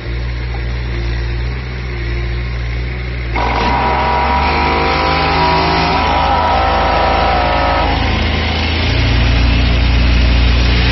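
Engine of a compact green digging machine running steadily. About three seconds in, a louder rushing noise with a wavering higher whine joins as the machine works, and the low engine note grows stronger about eight seconds in.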